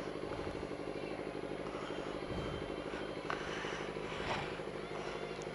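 Sport motorcycle engine idling steadily.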